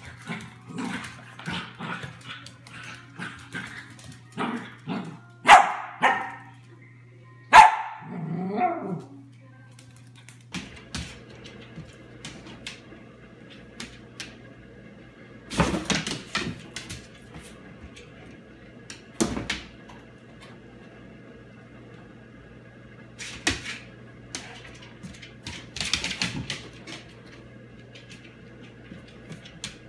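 A dog barking in play, with a run of quick short barks and yips. The two loudest barks come about five and a half and seven and a half seconds in, and the barking turns sparse, a few single sounds, after about ten seconds.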